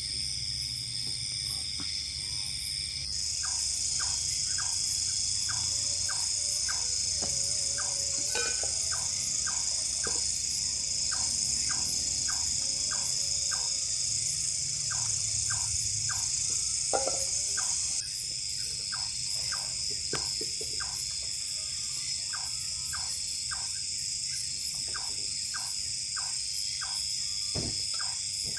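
Night chorus of crickets and other insects trilling steadily, with a louder high layer joining about three seconds in and dropping out a little after halfway. Under the trilling, short soft ticks repeat about twice a second.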